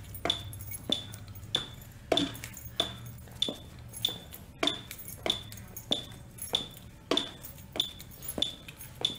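Metronome app on an iPhone beeping a steady step-test cadence, about three short high beeps every two seconds (roughly 96 a minute, the Queens College step test rhythm). Each beep comes with a light knock of the stepper's feet landing on the bench.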